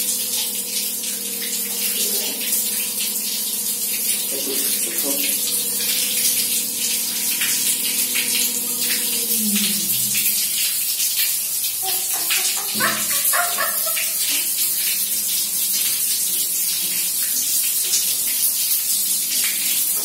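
Water from a wall tap running steadily onto a pug's back and splashing on the tiled floor during its bath. A steady pitched tone is held under the water for about the first half and drops away near the middle.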